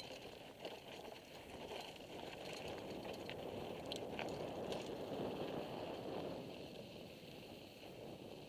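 Mountain bike rolling down a rocky dirt trail: tyres crunching over loose gravel and the bike rattling, louder around the middle, with a few sharp clicks about four seconds in.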